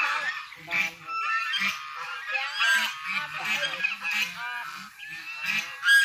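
A flock of fowl honking, with many short, overlapping calls that rise and fall in pitch, one after another.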